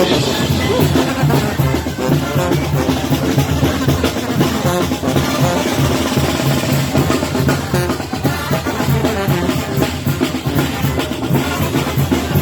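A Mexican banda playing live music, with drums, bass drum and snare beating steadily over a low stepping bass line.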